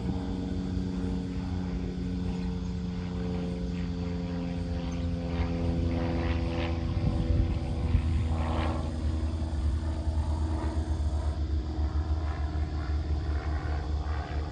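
A propeller aircraft drones overhead, its pitch sagging slowly as it passes, and fades out about halfway through. Under it, gusting wind rumbles on the microphone and grows stronger toward the end.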